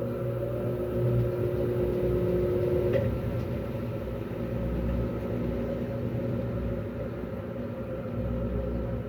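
Electrolux LAC12 12 kg top-loading washing machine in its spin cycle, the motor and drum running with a steady hum. A whining tone in the hum stops abruptly about three seconds in, leaving a rougher steady drone.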